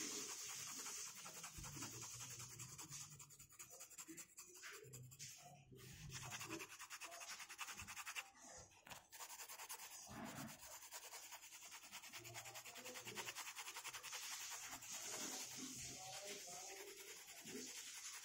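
Coloured pencil rubbing back and forth on paper in quick strokes as an area is shaded in grey, faint, with a brief pause about eight seconds in.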